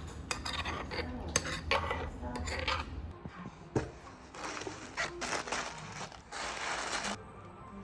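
Cutlery and dishes clinking and scraping, with scattered sharp clinks and a longer scrape near the end.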